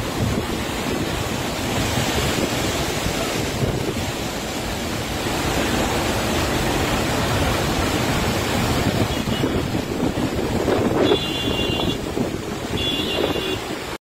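Torrent of muddy floodwater rushing down a steep hillside channel, a steady loud rush of water.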